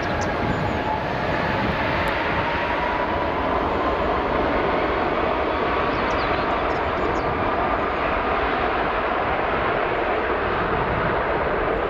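Airbus A330 freighter's jet engines heard from outside the airfield: a loud, steady rush with a faint whine that slowly rises in pitch.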